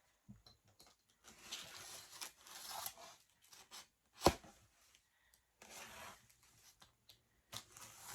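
A cardboard shipping box being handled and opened, with rasping tearing sounds of tape and cardboard and one sharp knock about four seconds in.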